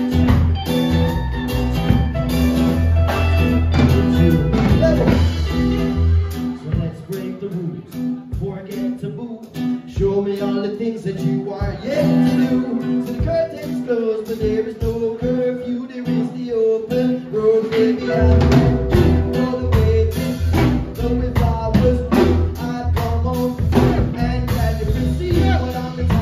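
Live band playing a song with electric and acoustic guitars, drum kit and singing voices. The deep low end drops out about six seconds in and comes back in full about eighteen seconds in.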